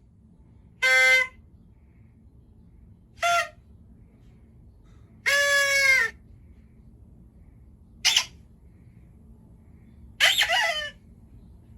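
Party horn blower tooted five times in short buzzy blasts of varying length, the middle one held longest and the last one wavering in pitch.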